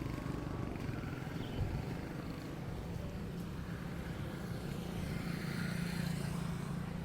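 A vehicle engine running steadily with a low hum that grows a little stronger in the second half, over faint street noise.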